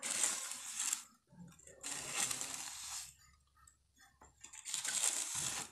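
Steel hand trowel scraping wet, gritty concrete mix along a mould, in three strokes of about a second each.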